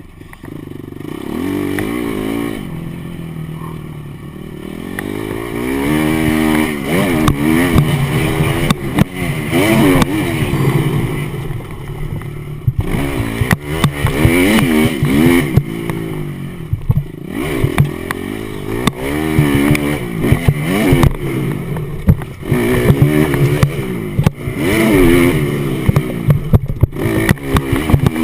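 Motocross bike engine revving hard, its pitch climbing and dropping again and again as the throttle opens and closes, with sharp knocks and clatter mixed in.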